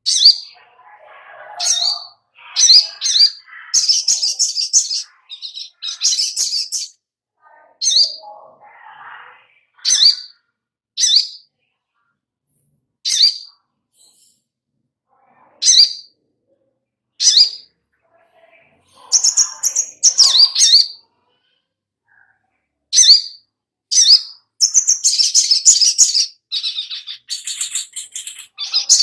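Caged sogok ontong (sunbird) calling: sharp, high single chirps every second or two, broken by bursts of rapid chattering song, which run almost without a break over the last few seconds.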